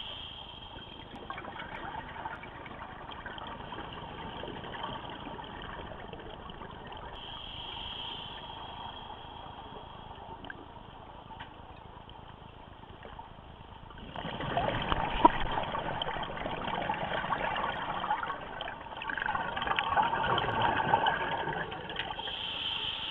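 Scuba diver breathing through a regulator underwater: a short hiss on each inhalation, and exhaust bubbles gurgling out on exhalation. The bubbling comes as two loud stretches in the last third.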